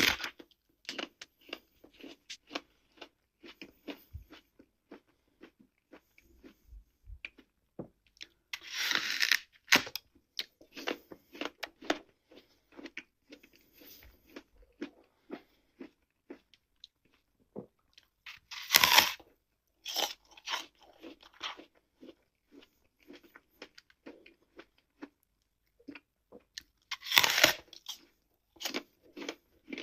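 Crunchy food being bitten and chewed up close: a stream of small crackling crunches, with three louder crunching bites spaced about nine seconds apart.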